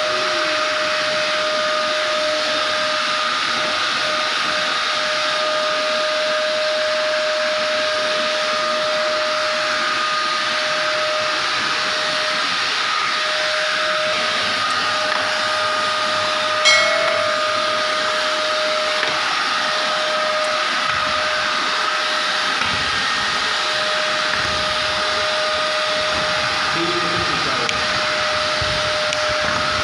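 Vacuum cleaner running steadily on a carpet, a constant high whine over a rushing hiss. A single short sharp click about halfway through.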